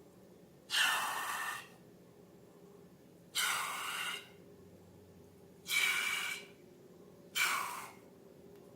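Four short hissing rushes of air, each just under a second long, starting sharply and fading, about two seconds apart.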